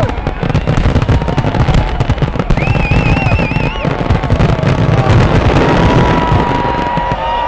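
A big fireworks display going off nonstop: a dense crackle of many small bursts over continuous low booming, with no gap, and a warbling whistle about three seconds in.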